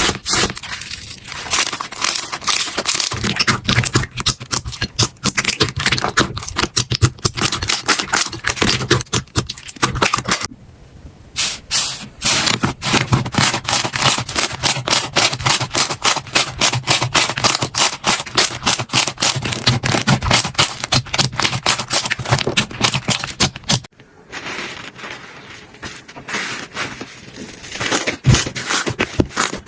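Hands squeezing and pressing slime, giving a dense run of crackling clicks and pops. The clicking breaks off briefly twice, where one clip changes to the next.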